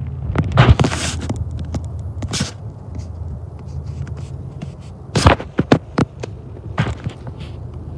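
Footsteps crunching on gravel ballast and knocks from the camera being handled, in scattered clusters about a second in and again around five to six seconds, over a steady low hum.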